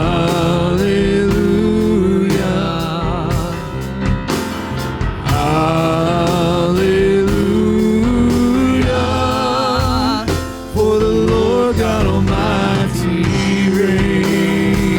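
Praise band playing a gospel worship song, with long sustained singing notes carrying vibrato over a steady beat.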